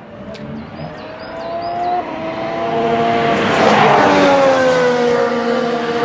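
Racing car engine approaching at high revs, getting louder with its pitch climbing, passing by close about four seconds in, then its pitch dropping as it pulls away.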